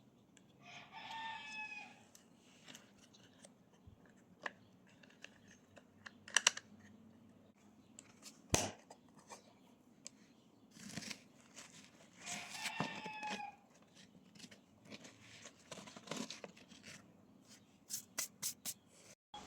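A rooster crowing faintly twice, each crow about a second long, some eleven seconds apart. Scattered faint clicks and rustles come in between, with a quick run of clicks near the end.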